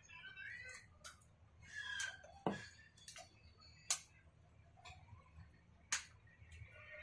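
Sharp taps and clicks of small hard objects handled on a work surface: three loud ones about a second and a half to two seconds apart, with fainter ticks between.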